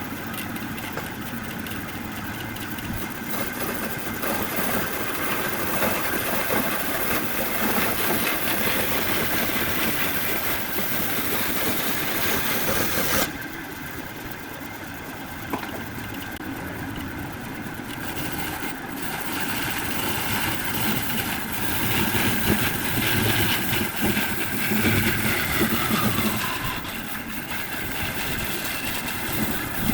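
Wood lathe running with a turning tool cutting the spinning wood: a steady mechanical noise with a faint hum. The sound changes abruptly about 13 seconds in, and a pitch falls near the end.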